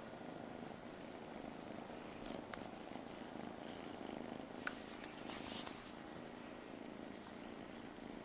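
Domestic cat purring steadily, close up, with a brief rustle about five seconds in.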